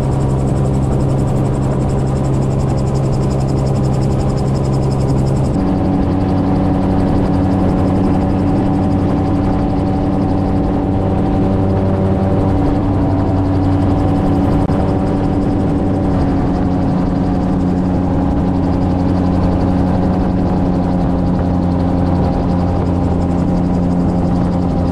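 Open-cockpit gyrocopter in flight: its engine and pusher propeller drone steadily over rushing air. About five seconds in, the engine note shifts to a different pitch and holds there.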